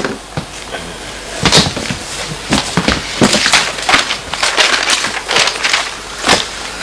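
Irregular rustling, crinkling and light knocks of papers and small objects being handled and shuffled on a coffee table.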